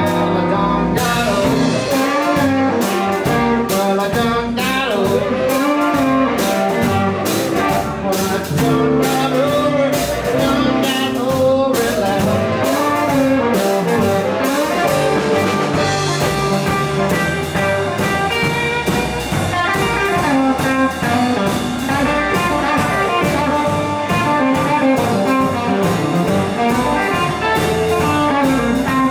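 Live electric blues band playing a steady shuffle beat: Telecaster-style electric guitar, upright double bass, drums and amplified harmonica, with some singing.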